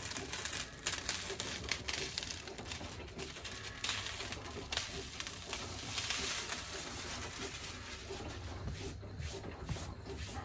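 Hot-foil carrier sheet being slowly peeled off a heat-pressed shirt once it has gone cold: a dry, continuous crackling and crinkling of thin plastic film with many small clicks, which thins out near the end as a hand smooths over the fabric.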